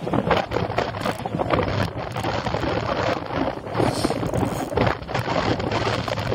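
Wind buffeting the microphone, with irregular knocks and rattles throughout.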